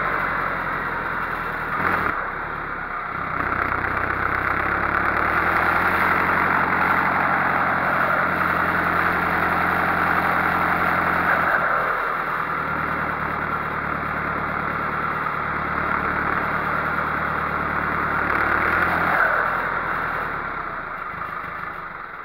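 Fendt 311 tractor's diesel engine running steadily as the tractor drives, its note easing off about halfway through and picking up again, then fading out near the end.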